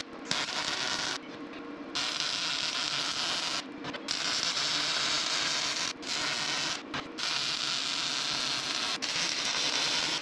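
MIG welding arc on steel square tubing: a steady hiss that stops and restarts several times in short breaks between weld runs.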